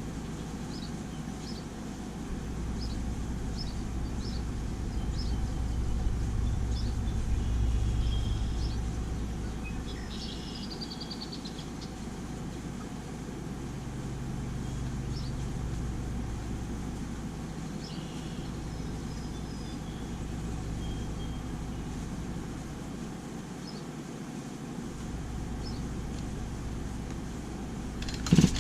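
A steady low rumble that swells and fades over several seconds, with faint high chirps about once a second. A sudden loud burst comes at the very end.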